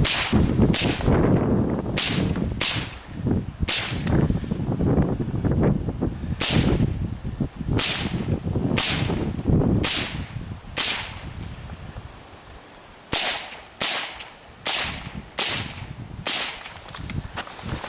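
A string of about twenty .22 LR rifle shots fired at irregular intervals of half a second to a second, with a pause of a few seconds early on. This is a shooter working through targets at a timed run-and-gun station.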